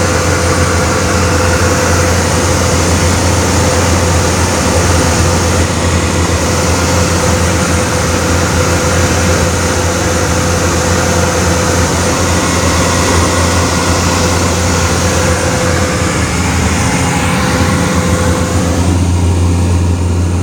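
Light high-wing propeller plane's engine and propeller running steadily, heard loud from inside the cabin: a constant low hum under broad rushing noise, with a thin higher tone that drops out near the end.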